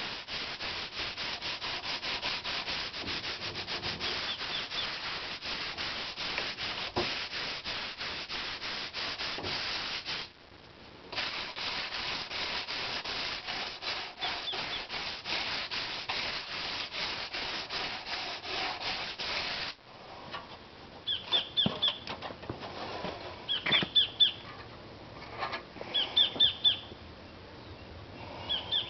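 Eaves being hand-sanded overhead with a 120-grit sanding block: quick, rhythmic back-and-forth scratching strokes, with a short pause about ten seconds in, stopping about two-thirds of the way through. After that, short bursts of high chirping repeat every couple of seconds.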